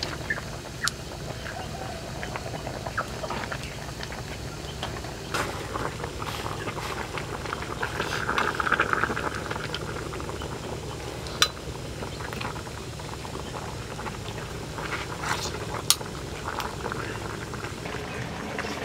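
Chicken soup bubbling at a boil in a steel wok around a whole chicken: a steady bubbling hiss with scattered sharp pops and clicks.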